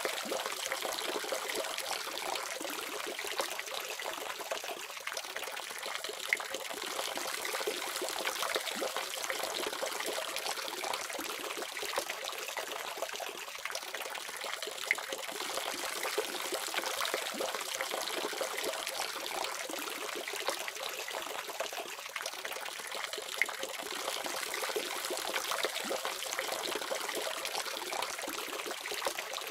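Water faucet running steadily, a continuous stream of tap water splashing and trickling with small scattered splashes.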